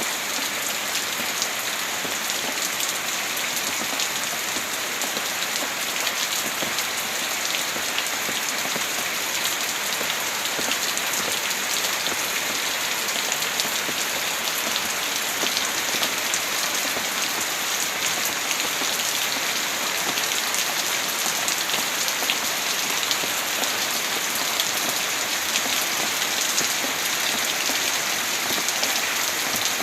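Heavy rain falling steadily, a dense even hiss of drops pattering on surfaces, with no thunder.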